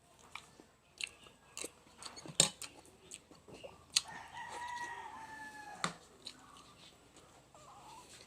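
Crunching and chewing on chicken bones, with a few sharp cracks. About four seconds in, a rooster crows once for about two seconds.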